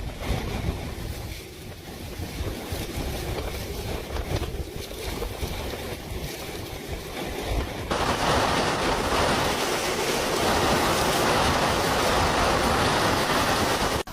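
Storm wind from Hurricane Milton buffeting the microphone with a gusty low rumble. About eight seconds in it switches abruptly to a louder, steady rushing hiss.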